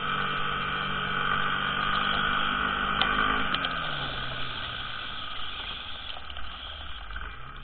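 Car engine and road noise picked up inside the cabin by a dashcam, with a steady high whine over it. About three seconds in there are a couple of faint clicks, and the engine note falls as the car slows.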